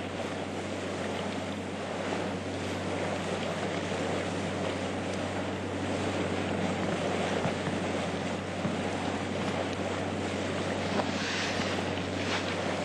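Boat's engines running with a steady low drone under a continuous wash of sea and wind noise.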